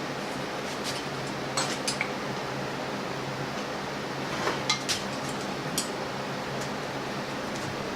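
A few light metallic clinks and taps, in two small clusters and a couple of single ones, as hard tools or metal parts are handled. Under them runs a steady hiss with a low hum.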